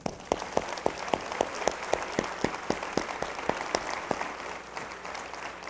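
Audience applauding: a dense round of clapping from many people, with one close clapper standing out at about four claps a second. It eases off slightly toward the end.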